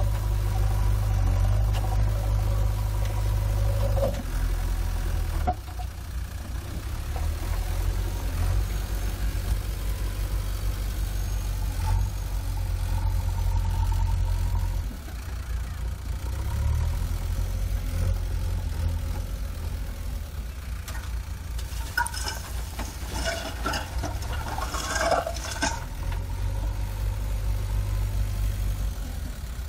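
JCB 3DX backhoe loader's diesel engine running under working load as it scoops rock with the front bucket and carries it. The engine's low rumble eases off and picks up again a few times. A spell of clattering knocks comes about two-thirds of the way through.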